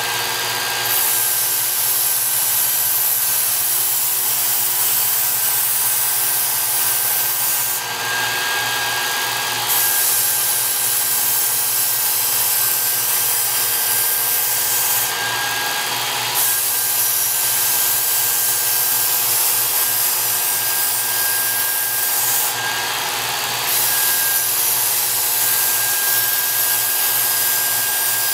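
Work Sharp Ken Onion Edition electric belt sharpener running with a steady high whine, a knife edge being ground against its moving abrasive belt with a continuous hiss. The grinding sound changes briefly about every seven seconds, between passes of the blade.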